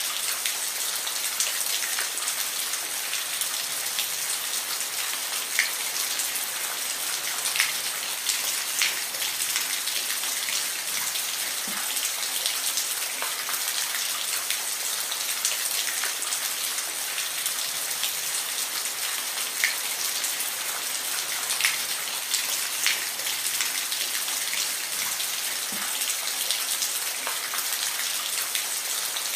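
Steady rain falling, an even hiss with scattered distinct drops ticking on a surface.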